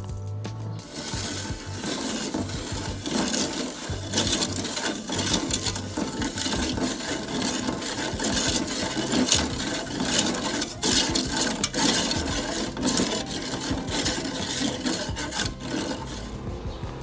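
A kitchen utensil scraping and rubbing over and over in an irregular rhythm.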